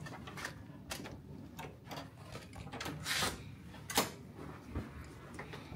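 Clicks and knocks of a hotel room door's lock and handle as the door is opened, with a short rustling burst about three seconds in and a sharp click at about four seconds.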